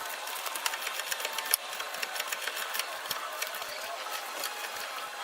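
Fast, steady mechanical clatter of a tool driving the screw of a C-clamp ball joint press, pressing a new lower ball joint into the steering knuckle.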